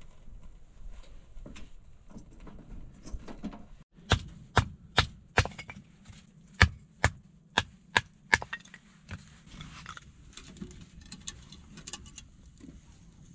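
Split dry kindling sticks being handled: a run of about ten sharp wooden cracks and clacks, two to three a second, starting about four seconds in, with softer rustling and small crackles before and after.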